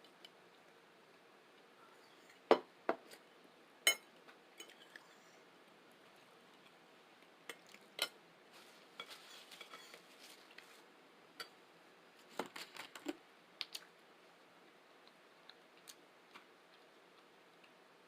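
Eating utensil clinking and tapping against a dish of food, in scattered sharp taps a few seconds apart, the loudest about two and a half seconds in and a quick cluster about twelve seconds in.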